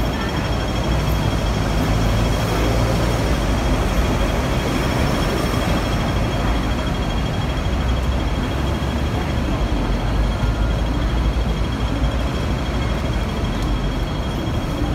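Busy city street traffic: a steady rumble of buses and trams with the murmur of a waiting crowd. A thin, steady high tone runs over it.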